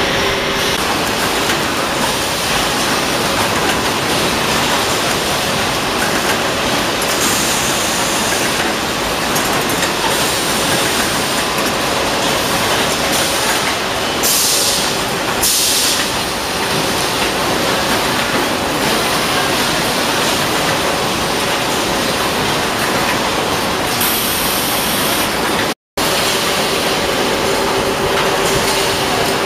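Steady, loud machinery din of a washing powder filling and packing line, with belt conveyors and packing machines running. A couple of short hisses sound about halfway through and again near the end, and the sound cuts out for an instant shortly before the end.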